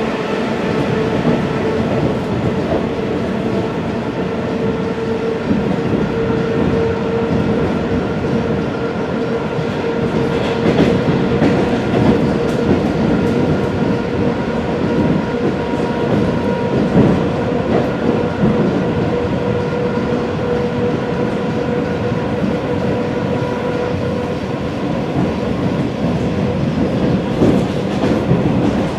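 ED4M electric multiple unit running between stations, heard from on board: a steady motor whine over the rumble of the running gear. Now and then the wheels clatter over rail joints, in a few clusters around the middle and near the end.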